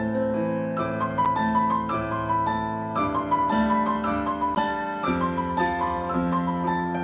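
Roland RD-700GX digital stage piano played with both hands in a piano voice: low notes held and changed about once a second under a steady flow of higher notes.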